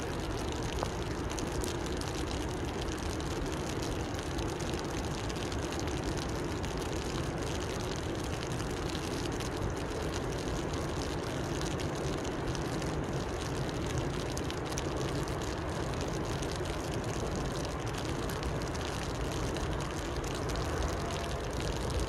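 Steady rain falling on a river, an even continuous hiss with a low rumble underneath.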